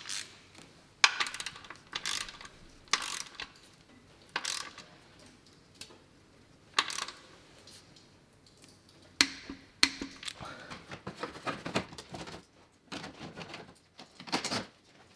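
Ratchet and torque wrench clicking on the oil drain plug as it is threaded in with a new sealing washer and tightened to 40 Nm. A string of separate metallic clicks a second or two apart, busier clattering from about ten seconds in.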